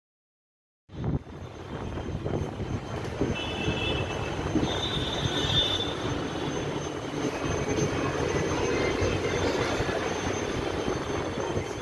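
Steady rumble of passing traffic that starts about a second in, with brief high squealing about three to five seconds in.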